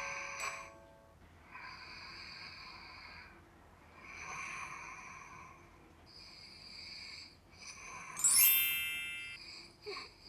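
A sleeper breathing loudly while wearing a head-strap anti-snoring device, long hissing breaths every two seconds or so with no snoring. A short chime jingle sounds at the start, and a bright rising run of chime tones about eight seconds in is the loudest moment.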